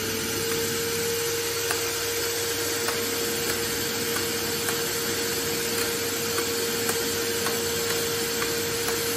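Vacuum cleaner running steadily with a constant mid-pitched whine, its hose plugged into a Lego model mill engine and drawing air through it. Faint, evenly spaced light clicks sound through the noise.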